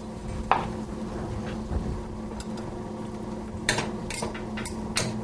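Wooden spoon stirring a cream sauce in a stainless steel skillet: a clink about half a second in, then a few short scraping strokes near the end. A steady low hum runs underneath.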